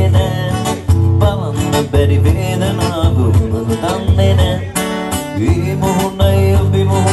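Live acoustic guitar played through a small amplifier while a man sings into a microphone, with strong low bass notes under the voice.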